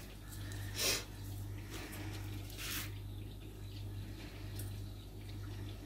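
Quiet room with a low steady hum, broken by two brief soft hissing noises about one second and three seconds in.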